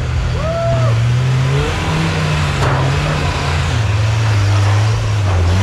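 Off-road rock crawler's engine revving up and down as it crawls over boulders, the revs rising about two seconds in and settling lower near four seconds. A single sharp knock about two and a half seconds in.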